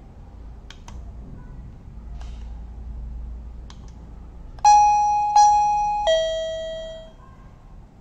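A few faint plastic button clicks, then a KERUI M525 plug-in wireless doorbell receiver plays its three-note chime as the F15 push button is pressed: two notes at the same pitch, then a lower one, each struck sharply and fading. The chime answering the button press is the sign that the button is paired with the receiver.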